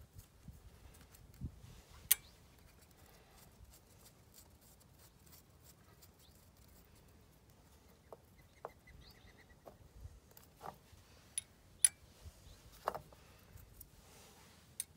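Faint, scattered small metal clicks and clinks of loose fuel-system parts being handled as the lift pump is worked off a John Deere 4840's diesel injection pump. A few sharper clicks stand out, about two seconds in and again later on.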